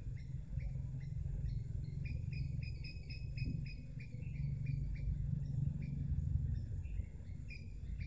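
Water from a solar-powered fountain trickling into a small planted pond, a steady low splashing. Over it, a bird chirps rapidly, several short high chirps a second.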